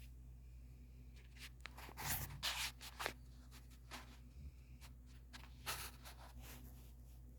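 Snoring of a sleeper: short, breathy snorts in two groups, about two seconds in and again near six seconds.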